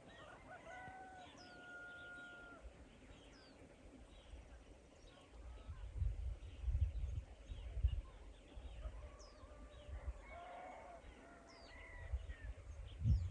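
A rooster crowing twice, a long held crow at the start and another about ten seconds in, with small birds giving short high chirps and low thumps and rumbles on the microphone between.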